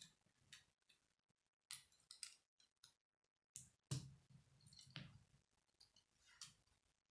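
Faint clicking and rustling of K'nex plastic pieces being handled and snapped together, with irregular short clicks and the sharpest ones about four and five seconds in.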